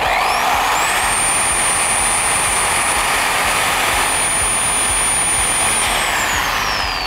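Handheld power saw cutting through a whitetail buck's drop tine of antler: its motor whines up to a high pitch right at the start, holds steady through the cut, and winds down about a second before the end.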